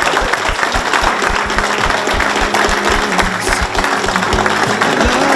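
Crowd of guests applauding, with music playing over it and growing more prominent from about two seconds in.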